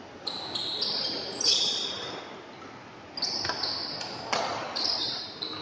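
Badminton rally: court shoes squeaking on the court floor in a string of short, high squeals, with a few sharp racket hits on the shuttlecock in the second half.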